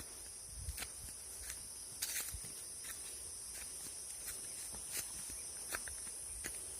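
Insects, crickets or cicadas, keeping up a steady high-pitched drone, with scattered light clicks about once a second.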